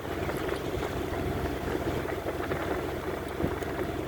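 Sailing yacht under way at about 10 knots: a steady rush of water along the hull with a little wind, over a low steady hum.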